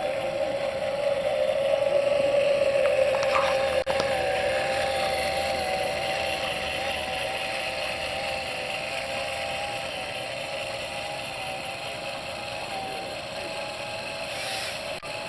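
A 12-volt electric motor overvolted to 32 volts spinning the fire-tornado rig, giving a steady whine, over the hiss of the whirling flame column. The sound is loudest a couple of seconds in and then eases off slowly.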